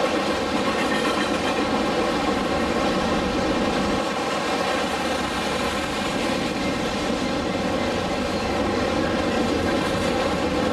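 CSX intermodal freight train rolling steadily past at trackside, its cars carrying truck trailers and containers.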